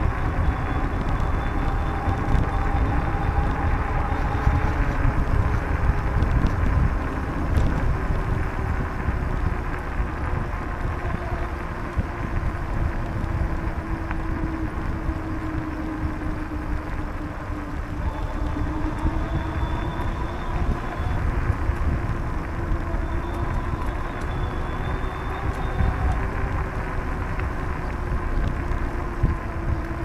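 Wind rumble on the microphone and the tyre and drivetrain noise of a bicycle rolling along a paved path, with a faint whine that slowly drifts up and down in pitch.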